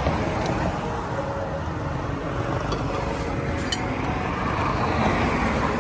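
A steady rushing noise with a few light clinks of metal utensils against plates, the sharpest about three and a half seconds in.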